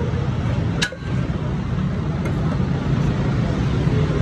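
Steady low mechanical rumble, with a sharp click and a brief dip in level about a second in.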